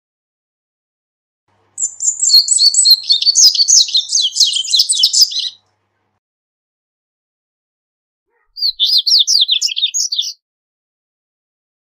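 Double-collared seedeater (corbatita) singing: a burst of several seconds of rapid, high twittering notes and then, after a pause, a second shorter burst.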